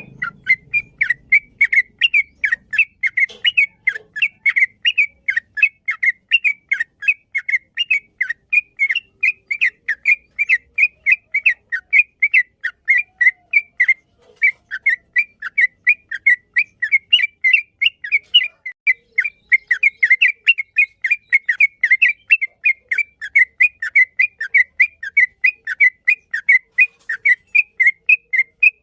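Yellow-vented bulbul (trucukan) singing a long, unbroken run of short, bubbly whistled notes, about four a second, with a brief pause about 14 seconds in.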